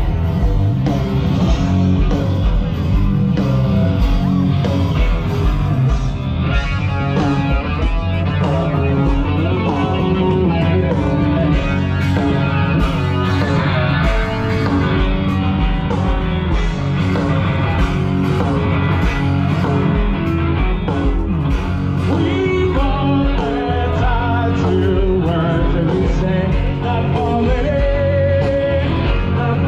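Live rock band playing loud through a festival PA, heard from the crowd: a singer over electric guitar, bass and drums.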